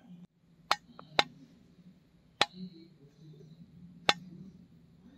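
A steel plate lid clinking against the rim of a clay pot as it is set on and pressed down into a dough seal. There are five sharp clinks: three close together about a second in, one near two and a half seconds, and one about four seconds in.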